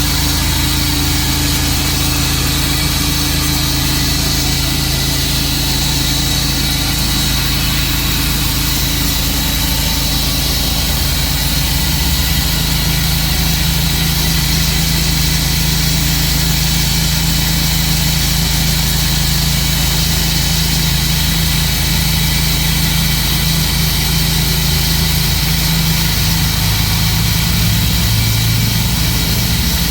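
Tru-Cut sawmill's engine running steadily, with a small shift in its low tone near the end.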